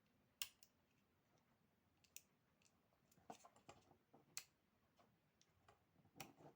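Near silence broken by faint, scattered clicks and taps, the sharpest about half a second in.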